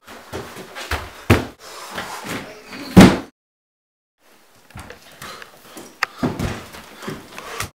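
Hurried footsteps and knocks of someone running through a house, with one loud bang about three seconds in, then feet thudding quickly down carpeted stairs.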